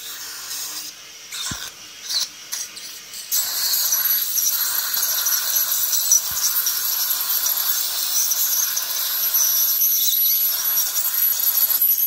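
Ultrasonic dental scaler cleaning teeth, with a steady thin high-pitched whine and spray hiss starting about three seconds in and running until near the end, over the hiss of a saliva suction tube. The first few seconds hold irregular short bursts of suction slurping.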